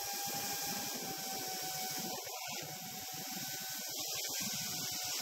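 Onboard sound of a heavy 6S FPV racing quadcopter in flight: its motors and propellers give a steady whine over a constant hiss, with irregular rumbling of air on the microphone.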